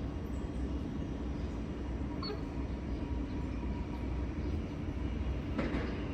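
Steady low rumble of a Siemens Nexas electric suburban train approaching the platform, with a brief rushing noise near the end.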